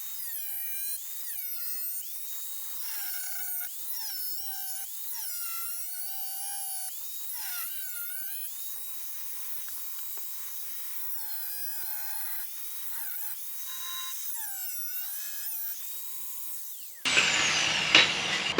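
Power tool cutting sheet-metal firewall, its pitch sagging and recovering about once a second as it bites and eases off. The sound is thin, with all the low end missing, and it gives way to a louder, fuller noise near the end.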